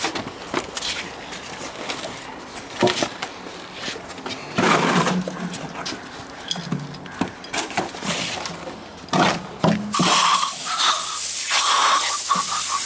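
Scattered knocks and scrapes as precast concrete balusters are handled and set in place. About ten seconds in, a steady loud hiss takes over.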